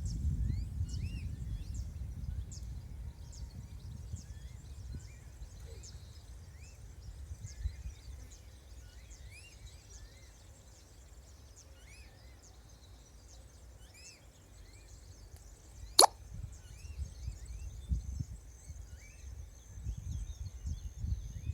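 Small birds chirping, short rising calls repeated throughout, over a pond ambience. A low rumble swells near the start and again near the end. One sharp plop-like click sounds about sixteen seconds in.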